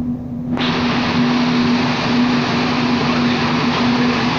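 Mini running on a rolling road dyno: a loud, steady mechanical noise with an even hum held throughout. The higher part of the noise cuts out briefly at the very start, then comes straight back.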